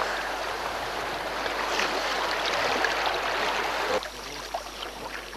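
Rushing whitewater river water, a steady hiss of moving water. About four seconds in it drops suddenly to a quieter water sound.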